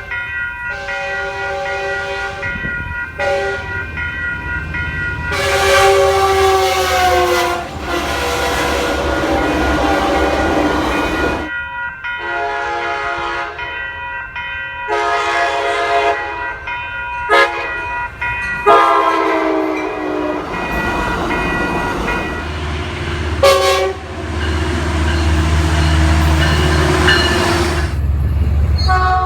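A series of multi-chime locomotive air horns, Nathan K2 and K5LA, sounding long and short blasts in turn from passing passenger trains. Some chords drop in pitch as a train goes by. A rush of passing rail cars runs between blasts, and a deep low locomotive rumble fills the last several seconds.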